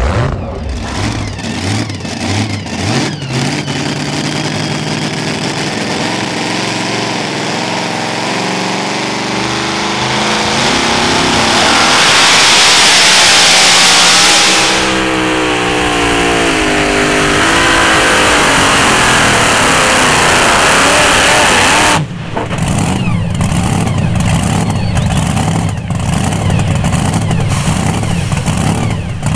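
Super modified two-wheel-drive pulling truck's engine running hard under load on a pull. It rises in pitch and is loudest about halfway through, then winds down. About three quarters of the way in the sound cuts abruptly to another take of engine noise.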